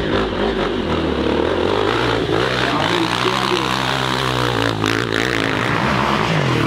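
Off-road motorcycle engines running hard under load, a steady high-revving drone whose pitch falls away near the end.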